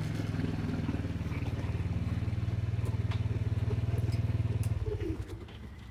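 Small motorcycle engine running steadily with a fast, even pulse, then stopping about five seconds in.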